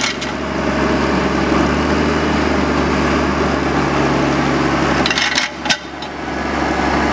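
John Deere 1110D forwarder's diesel engine running steadily as the tracked bogie wheels roll, with a few sharp cracks a little after five seconds in.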